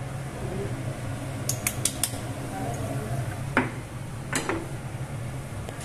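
Whole spices tipped from a marble mortar into a pan of hot oil, with a quick run of sharp clinks and then two knocks of stone and metal as the mortar is handled and set back down. A steady low hum sits underneath.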